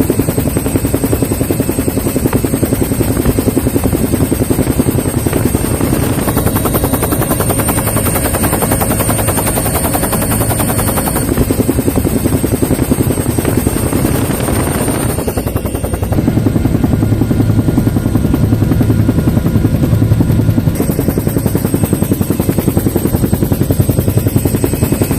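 Helicopter rotor chopping at a fast, steady beat, loud and close, with a shift in its sound about two-thirds of the way through.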